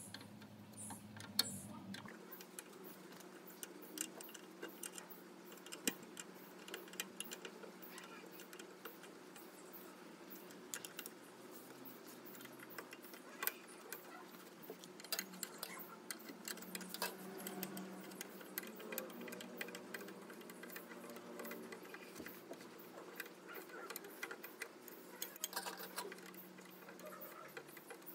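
A metal spanner clicking and clinking on the rusted bolts of an electric motor's mount as they are turned: a run of small, irregular metal ticks.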